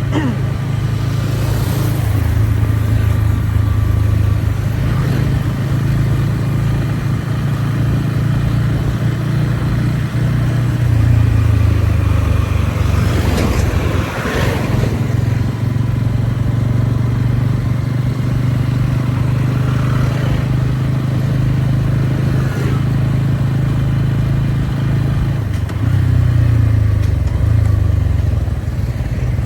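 Motorcycle engine running steadily while riding: a low drone that swells briefly about halfway through.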